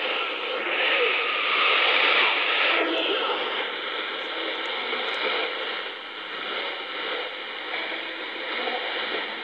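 Shortwave AM radio reception on 15140 kHz through a communications receiver: a weak signal buried in hiss and static. A surge of noise comes about one to three seconds in, then a faint steady whistle holds for the rest.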